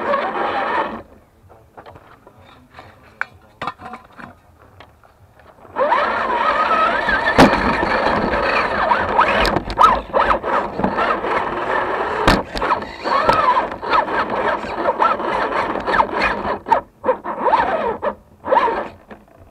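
RC rock crawler's electric motor and gears whining as it drives, the pitch rising and falling with the throttle, mixed with scrapes and sharp knocks from the tyres and chassis going over dirt and logs. Scattered clicks at first; the drive starts about six seconds in and runs with short pauses near the end.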